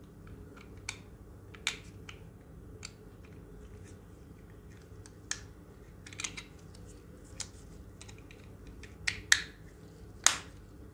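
Hard plastic clicks and snaps from handling an LED headband magnifier as its battery cover is slid shut: a scattering of sharp single clicks, with a quick pair about nine seconds in and the loudest snap about ten seconds in.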